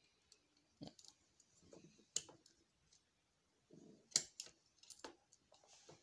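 Scattered faint clicks and knocks of hands working a sewing machine's handwheel and motor belt while the belt is refitted reversed, with soft handling rustles between them. The sharpest click comes a little past halfway.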